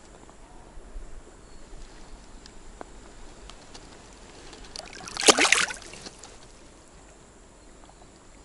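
Faint lapping of lake water with a few small ticks, then a short loud splash of water about five seconds in.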